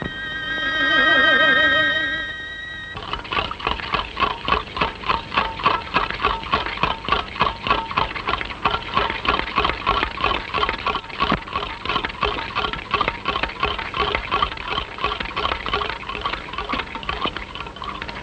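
Orchestral film score: a held string chord with vibrato, then a rapid, evenly pulsing figure of repeated notes that carries on to the end.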